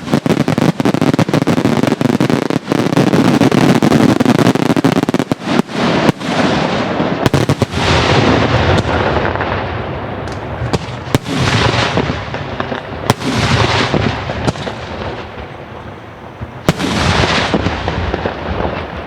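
Daytime fireworks display: a dense, rapid string of bangs for about the first six seconds, then slowing to single loud bangs a second or two apart, each trailing off in a rolling echo.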